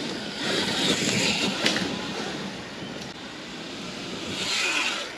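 2022 Sur-Ron Light Bee X electric dirt bike ridden past on a dirt track: its electric drive whine and tyre noise swell about a second in, fade, then rise again near the end, with one sharp click about a second and a half in.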